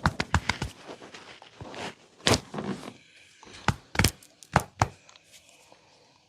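Hand-massage percussion: a fast run of chopping hand strokes, about seven a second, stops under a second in. About five separate sharp slaps follow over the next few seconds.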